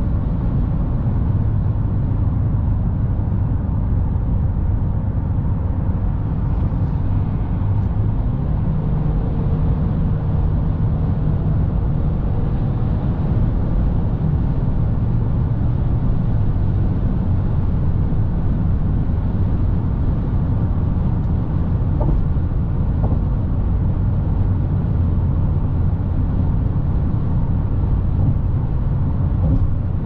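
Steady low rumble of tyres on the road and the petrol engine of a 2019 Ford Kuga cruising at motorway speed, heard inside the cabin.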